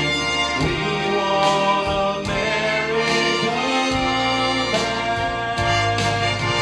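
Instrumental backing track of a Christian song playing between sung lines: sustained chords over a bass line that changes note every second or so.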